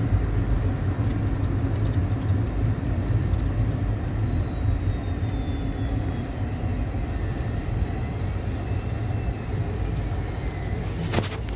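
Road and engine noise inside a moving tour van: a steady low rumble, with a faint high whine that slowly falls in pitch. A brief clatter comes near the end.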